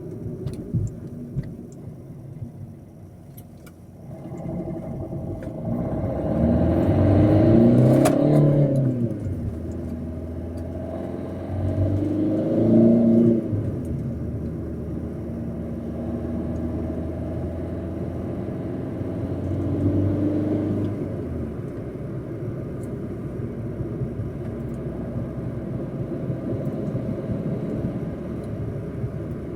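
Opel Corsa D engine, running with a failed turbo that gives no boost, idling and revving up three times. The biggest rise in pitch comes about a quarter of the way in, then a second, and a smaller one later, each falling back.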